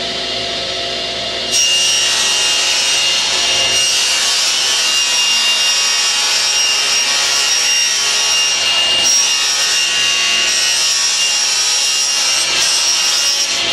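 Table saw ripping a long taper from 1/8-inch plywood. The saw is already running; about a second and a half in it gets suddenly louder and takes on a high whine as the blade bites into the wood. The cut then goes on steadily until the very end.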